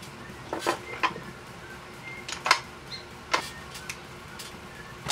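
Plastic makeup compacts clicking and knocking as they are handled and sorted: several short, irregular knocks.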